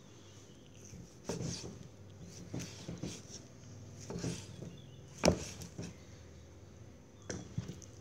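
Kitchen knife slicing grilled pork neck on a thick round wooden chopping board: a handful of irregular knocks as the blade meets the board, the loudest about five seconds in.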